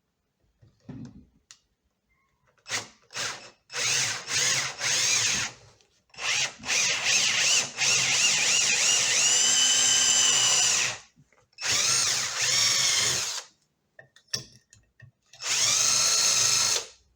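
Handheld electric power tool run on a metal plate in repeated bursts, the longest about five seconds, its motor whining and its pitch rising as it spins up.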